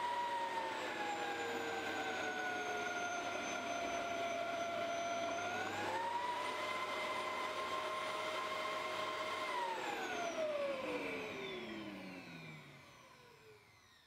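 Bosch GL-20 canister vacuum cleaner's motor whining. Its pitch sinks over the first few seconds as the power dial is turned down, then rises back up about six seconds in. About nine and a half seconds in it is switched off, and the whine falls steadily in pitch and fades as the motor spins down.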